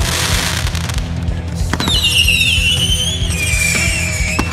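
Fireworks set to music with a steady bass. There are sharp firework bangs about 1.7 s in and again near the end, and from about 2 s in a long whistle slowly falling in pitch.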